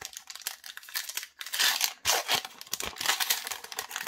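A trading card pack's crinkly wrapper being torn open and crumpled by hand, a crackling rustle that swells twice.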